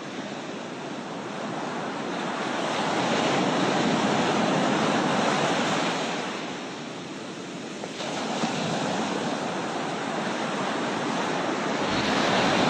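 Rushing, surging water: a steady noisy hiss that swells a couple of seconds in, dips about seven seconds in, then builds again.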